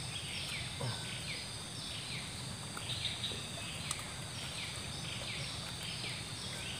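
Outdoor wildlife chorus: high, falling chirps repeating two or three times a second over a steady hiss, with a few faint clicks.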